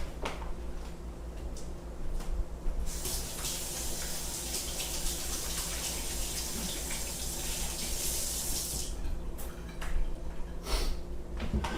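Water running or pouring with a steady hiss for about six seconds, starting about three seconds in and stopping near the nine-second mark.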